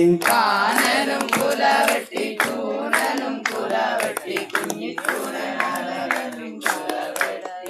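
A group of people singing the line back together in a loose, uneven chorus of many overlapping voices, with hand claps, in a Malayalam call-and-response action song.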